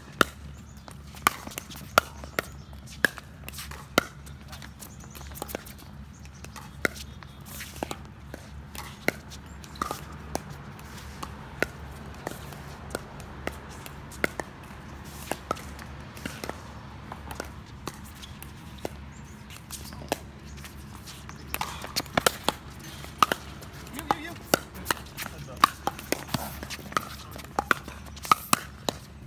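Pickleball paddles hitting a hard plastic pickleball in rallies: sharp pocks about once a second for much of the time, coming faster and thicker from about three quarters of the way through.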